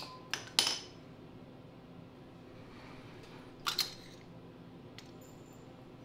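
Small metal clinks and clicks from a wrench and the carburetor's float-bowl parts as the bowl is worked off a Tecumseh snowblower carburetor. There are three clinks in the first second and two more close together a few seconds later.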